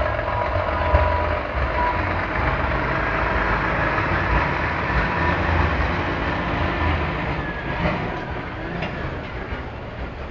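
Heavy truck engine running in street traffic: a loud, steady low rumble that eases off over the last couple of seconds as it moves away.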